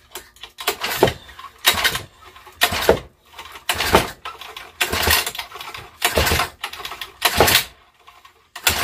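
Old lawnmower engine being pull-started by its recoil rope, about eight quick pulls roughly a second apart, each a short rush of rope and cranking. The engine, primed with gasoline sprayed into the intake and with no blade fitted, turns over without catching.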